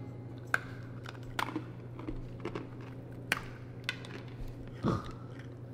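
People biting and crunching a stale dog treat, a few sharp crunches scattered among quieter chewing, over a steady low hum.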